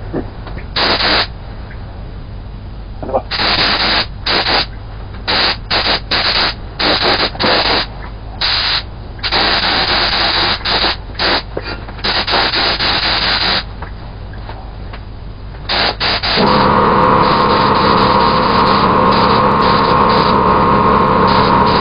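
Air spray gun hissing in a run of short and longer bursts as its trigger is pulled and let go for each pass of clear coat. About two-thirds of the way through, a steady motor drone with a constant whine starts under it, an air compressor cutting in.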